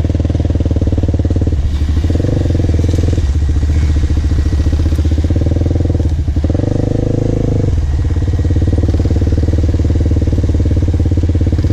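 Quad bike engine running close by without a break, its note changing twice as the throttle shifts: briefly about two seconds in, and again for over a second around the middle.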